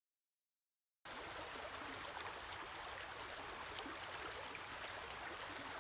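Silence for about a second, then the steady rush of flowing water from a stream or waterfall.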